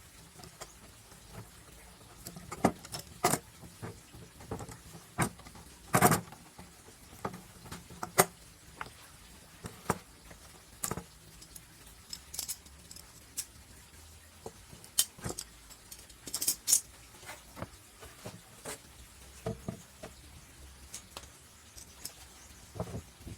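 Irregular light clicks and knocks of wooden pieces and tools being handled and set down on a workbench, a few sharper knocks among them.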